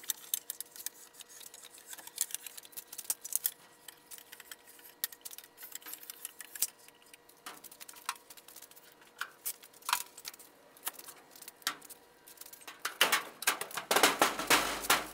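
Scattered small clicks and taps of hand work on an RV entry door, then a burst of louder knocks and rattles near the end as the door is pushed into its frame.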